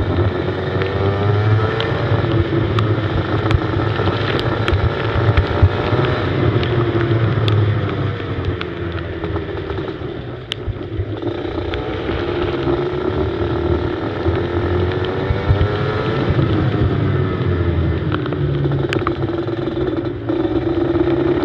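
Go-kart engine heard from on board, revving up and down as it is driven round a track, with the pitch falling away about ten seconds in and climbing again after. Scattered sharp clicks sound over the engine.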